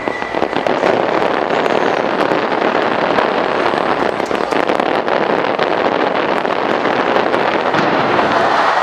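A fireworks barrage with many shells bursting at once: loud, dense, unbroken crackling and popping.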